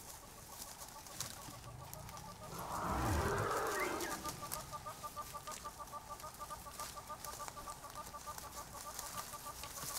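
A bird gives a rapid, even clucking call of about six notes a second, starting about four seconds in. Just before it, a louder rushing noise with a deep rumble swells and fades.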